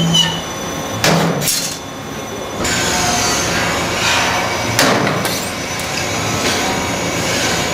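CNC spring-making machine running, with a few sharp metallic clacks over a steady mechanical clatter; a low hum stops about half a second in.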